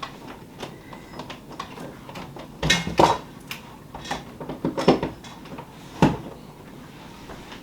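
Knocks and clatters of things being handled and set down on a hard surface, a cluster about three seconds in, more around four to five seconds, and one sharp knock near six seconds.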